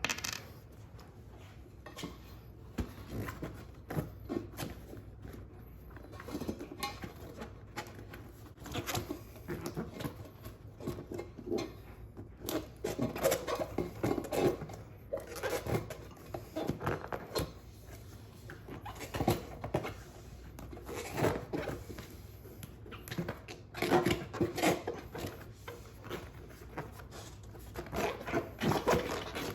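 Rubber handling noise in irregular bursts: a partially inflated 16 x 3 inner tube being pushed and worked into a Shinko 244 tire, rubbing and shifting against the tire.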